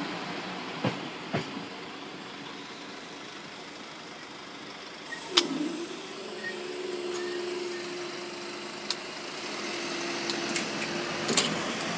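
The last of a Class 172 diesel multiple unit dies away past the crossing, with a couple of clicks. About five seconds in there is a clunk, and the level crossing barriers lift with a steady motor hum. The hum lasts about six seconds and ends in another clunk as the booms come to rest.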